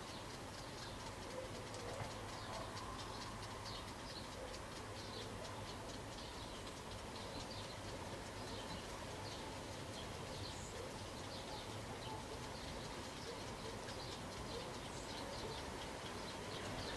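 Small birds chirping and twittering continuously, with a dove cooing in the first few seconds, over a steady low hum.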